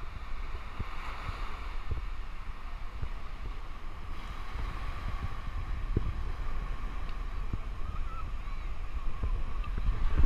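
Surf washing onto a sandy beach, mixed with wind rumbling on the microphone, and a few soft knocks scattered through; the sound changes character about four seconds in.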